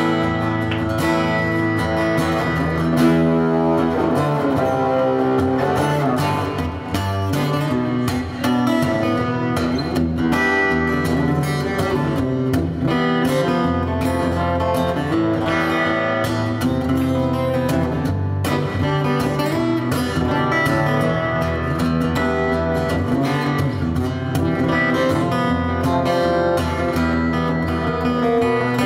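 Solo acoustic guitar playing a continuous instrumental passage of picked notes and chords, with no singing.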